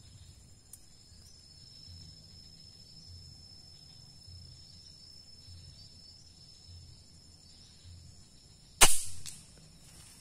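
A single sharp shot from a Tarantula JB 001 pump air rifle, fired near the end, with a short ringing tail.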